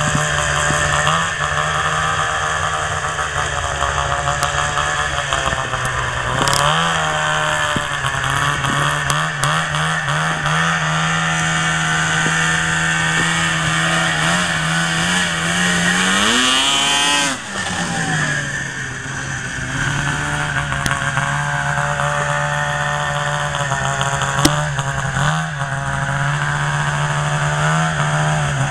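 Two-stroke engine of a modified 2004 Sno Pro race snowmobile running at a steady high pitch, with small rises and falls in engine speed. About two-thirds of the way through it revs sharply up and then drops back.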